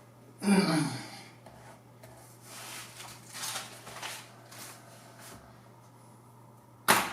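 A pause in a man's slow narration: a short wordless vocal sound about half a second in, then soft breathy noises, and one sharp click near the end, over a faint steady hum.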